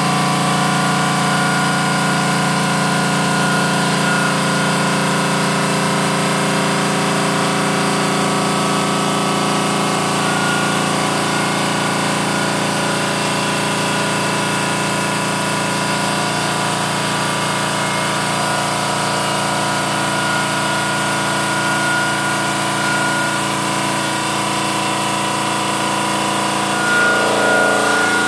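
Park Industries Saber 5-axis CNC bridge saw running, its blade slowly cutting through a kitchen countertop stone slab with a steady whine of several tones. Near the end the sound shifts and gets a little louder.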